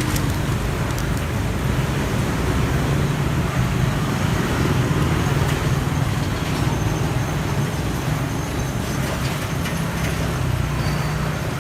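Steady road traffic noise, with engines passing in a low, unbroken hum.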